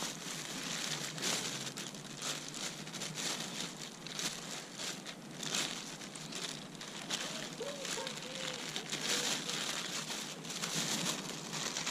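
Clear plastic bag crinkling and rustling in irregular crackles as it is handled and opened by hand to get at the deadbait inside.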